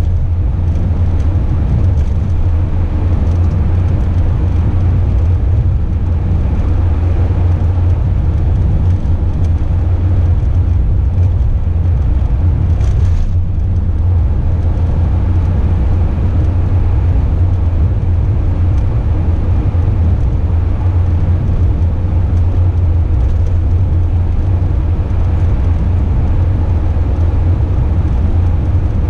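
Motorhome driving at steady speed, a continuous low rumble of engine and tyre noise heard from inside the cab. A brief high hiss rises over it about halfway through.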